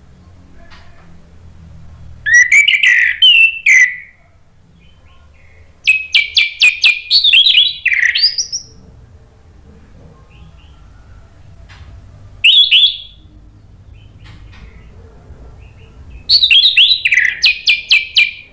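Orange-headed thrush singing in four loud bursts, each a quick run of sharp repeated notes, some sliding down in pitch, with quiet pauses of a few seconds between bursts.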